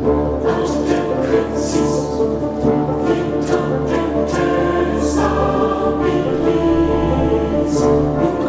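Orchestral music with a choir singing, loud and sustained, with several brief high hissing surges through it.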